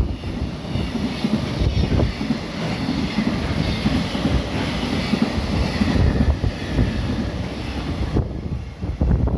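Container freight train rolling through at speed: the rumble and clatter of wagon wheels on the rails with rushing air. It falls away near the end as the last wagon goes by.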